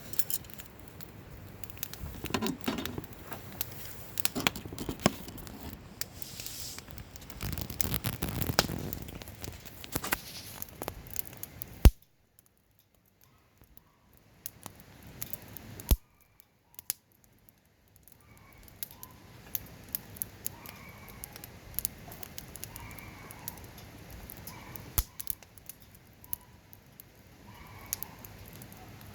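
Wood campfire crackling, with irregular sharp pops scattered throughout. The sound drops almost to nothing twice near the middle, then the crackling carries on more softly.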